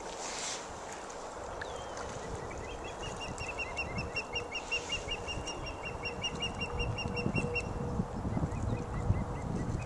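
A bird calling a rapid series of short, high chirps, about ten a second, for roughly five seconds, over low wind rumble on the microphone and a faint steady hum. A sharp click comes right at the start.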